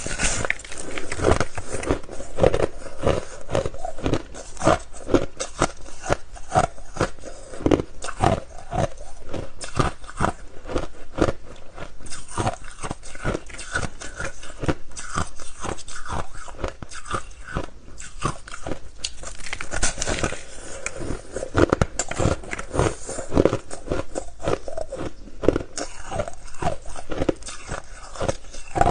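Biting and crunching into a chunk of soft, snowy ice, with many crisp crunches in quick succession throughout.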